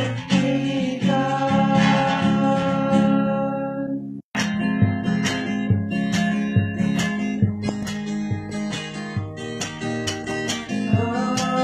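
Young men singing to a strummed acoustic guitar. The sound cuts out for an instant about four seconds in, then the guitar strumming carries on in a steady rhythm.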